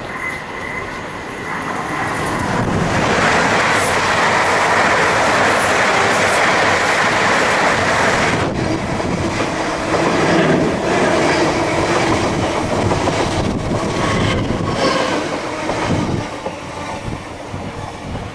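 Red electric multiple unit passing through a station: a rushing wheel-and-rail noise builds over a couple of seconds, stays loud and steady with clicks of the wheels over rail joints, then fades near the end.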